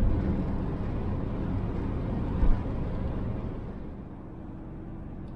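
Cabin noise of a cargo van driving at highway speed: steady low road and engine rumble, with one short low thump about two and a half seconds in. The noise eases off a little about four seconds in.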